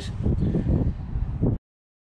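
Outdoor wind rumble on the microphone with a few faint knocks, cutting off abruptly to dead silence about one and a half seconds in.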